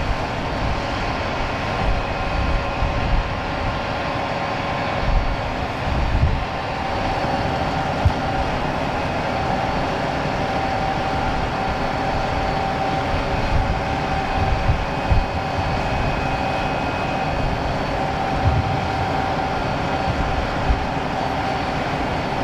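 Steady machinery hum with several high, steady whining tones, over an irregular low rumble.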